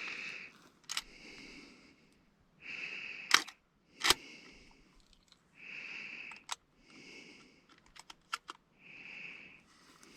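Sharp metallic clicks and clacks of a shotgun being handled and loaded, the loudest a little over three seconds in and a quick cluster near the end. Slow repeated breaths sound close to the microphone throughout.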